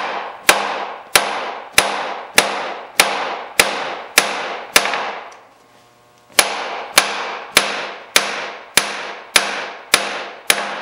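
Steady hammer blows on a home-made bearing driver, driving a bearing race out of a Monarch lathe's headstock casting. Each strike rings; about eight strikes come at a little under two a second, then a short pause, then about eight more.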